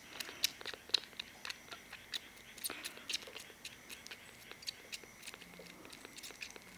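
A kitten suckling eagerly at a baby bottle's nipple: quick, irregular wet clicks and smacks, about three a second, thinning out and growing fainter after the first few seconds.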